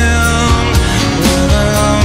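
Background music: a song with sustained instruments and a steady beat.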